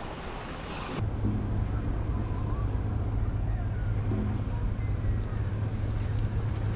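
Wind and sea water for about a second, then an abrupt change to a steady low engine hum.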